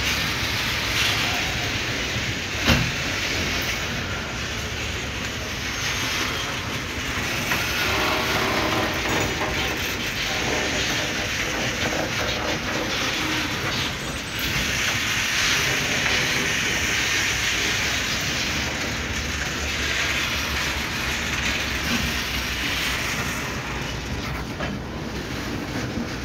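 Bauxite ore gondola wagons of an MRS freight train rolling past on broad-gauge track: a steady noise of steel wheels on the rails, with one sharp bang about three seconds in.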